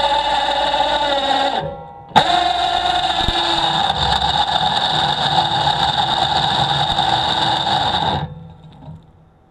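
A motor running steadily with a strong, even pitched hum. It cuts out about a second and a half in, comes back abruptly with a sharp click just after two seconds, and stops near the end, dying away over about a second.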